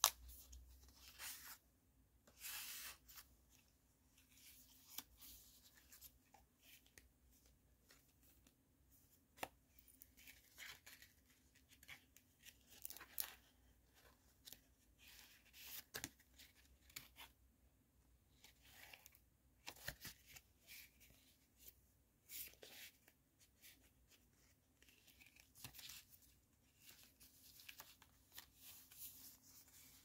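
Faint, irregular rustling and brushing of paper as the pages and tucked-in cards of a handmade junk journal are leafed through and handled, with a few light taps.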